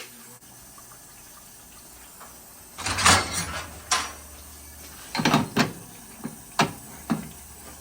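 Irregular knocks and clatters of hard objects, about six over the last five seconds, over a low steady hum that starts about three seconds in.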